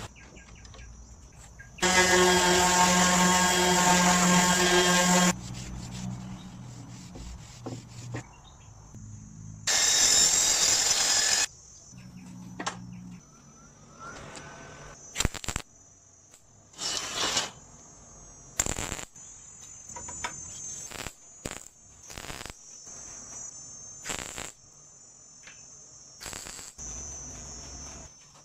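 Workshop machinery: a motor runs with a steady hum for about three seconds, then a loud hiss comes about ten seconds in, then a series of short, sharp bursts follows over the second half, with a faint high whine underneath.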